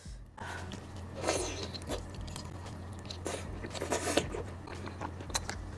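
Close-up eating sounds of raw marinated red shrimp being bitten and chewed, with a few short, sharp crunchy clicks scattered through, over a low steady hum.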